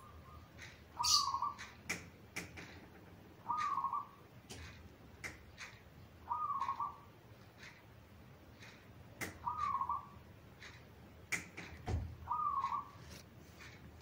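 Zebra dove (perkutut) cooing its short staccato song phrase five times, about once every three seconds, with sharp clicks scattered between the phrases.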